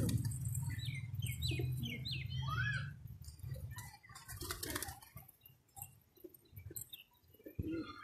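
Domestic pigeons on a rooftop: short clattering wing flaps and cooing, with high rising chirps. A low steady rumble runs under the first three seconds and then stops.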